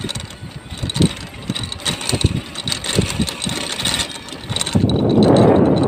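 Rumble and irregular knocks of a small open vehicle travelling along a road. Near the end a louder rushing noise sets in, wind blowing over the microphone as it moves.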